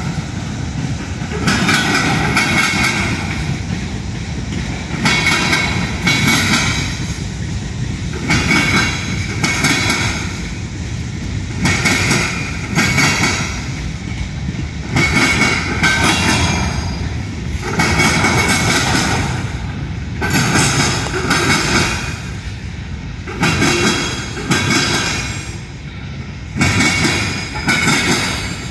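Union Pacific train rolling past, its wheels clattering in a steady rhythm that returns every one and a half to two seconds, each return carrying a high ringing squeal.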